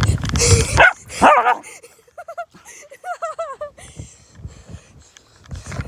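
A puppy vocalising: a loud, bark-like burst at the start, then a run of short, high, wavering whines and yips.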